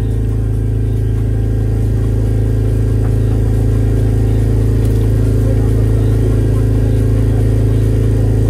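An engine on board a fishing boat running steadily: a loud, deep, constant-pitched drone that does not change speed.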